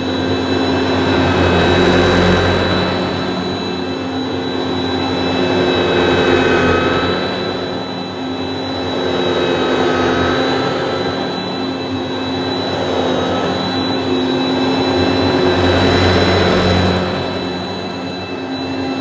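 Kärcher Ranger upright vacuum cleaner (built by Sebo, impeller-style suction motor) running, with a steady high whine over its motor drone, the sound swelling and easing every few seconds.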